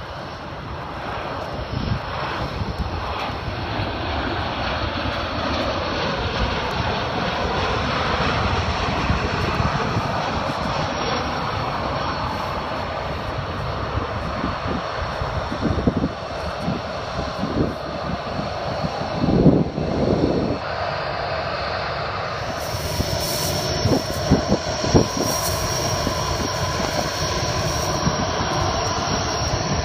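Jet airliner engines running with a steady rushing roar. About two-thirds of the way through, a high steady whine joins. A few low thumps stand out in the middle.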